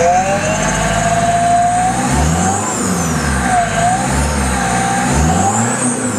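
Mazda RF-CX Comprex diesel engine, with its pressure-wave supercharger, being revved, its pitch rising and falling a couple of times.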